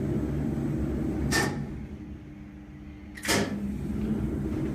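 1951 wharf crane's electric slewing drive running with a steady low hum while the crane turns. Two sharp clunks come from the machinery, a lighter one about a second and a half in and a loud one a little past the middle. The hum drops away briefly before the loud clunk and comes back with it.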